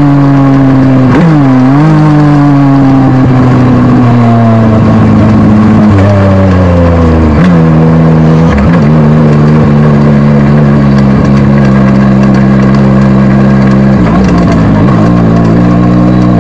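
Legend car's four-cylinder Yamaha motorcycle engine, heard loud from inside the cockpit, running at low steady revs as the car rolls slowly. The revs dip briefly a few times and settle lower between about six and eight seconds in.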